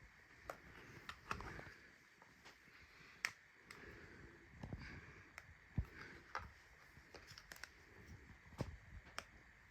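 Faint, irregular handling noise: scattered light clicks and taps with a few soft thumps, the heaviest about halfway through.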